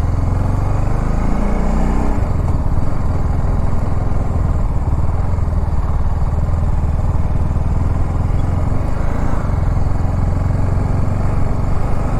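TVS Apache RR 310's single-cylinder engine running steadily while the motorcycle is ridden along the road, with road and wind noise.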